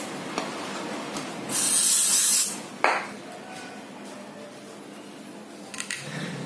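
Aerosol cleaner can spraying one hissing burst of about a second into a throttle body to rinse it, followed by a sharp knock; a few faint clicks near the end.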